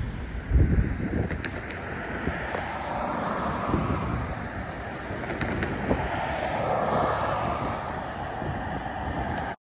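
Wind buffeting the microphone, with cars driving past on the road: tyre noise swells and fades twice. The loudest wind thumps come about half a second in, and all sound cuts off just before the end.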